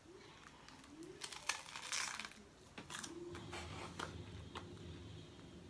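Close-up chewing of a mouthful of pizza stuffed with raw cabbage: crunching and wet mouth clicks, busiest between about one and two seconds in. A low steady hum sits underneath from about three seconds in.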